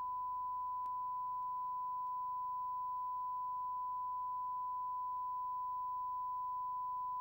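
Steady 1 kHz line-up reference tone, a single unbroken pure note, played with the colour-bar test signal at the head of a video tape.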